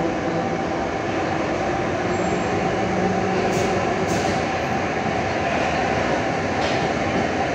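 Interior of a Soviet-built 81-71 metro car running along the line: a steady rumble of wheels and running gear with a steady whine over it, and a couple of faint brief ticks about halfway through.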